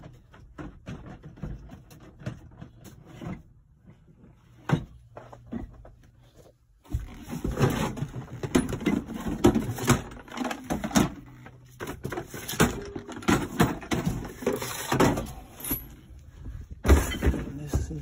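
Hard plastic tool cases being shifted and handled on a shelf, with irregular knocks and clattering. It is sparse at first and gets busier and louder about seven seconds in.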